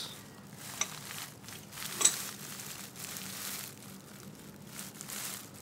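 Plastic sheeting and a zip-lock bag crinkling as a hand shifts a broken transformer bushing insulator lying on them, with a short click about a second in and a louder one about two seconds in.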